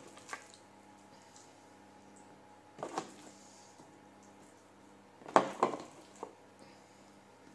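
Raw chicken breasts being laid by hand into a Tupperware UltraPro oven dish: a few soft wet slaps and knocks against the dish at intervals, the loudest about five and a half seconds in. Under them runs a steady low hum from a preheating oven.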